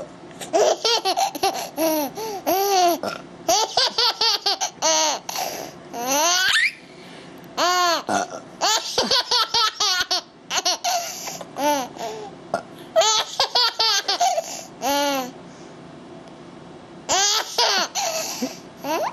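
A young child laughing in repeated bursts of high-pitched giggles, with a pause of about a second and a half near the end before one more burst.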